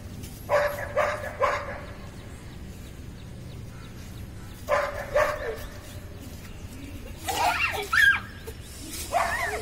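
Young puppy yipping: three short yaps about half a second apart about a second in, two more near the middle, then longer wavering cries that bend up and down in pitch near the end.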